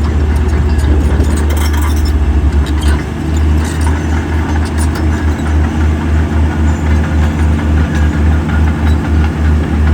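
Heavy diesel engine of earthmoving equipment running, a deep rumble that pulses evenly.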